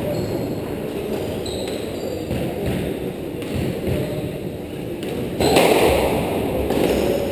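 Squash ball being struck and hitting the court walls with dull thuds, with short high squeaks of court shoes on the wooden floor near the start.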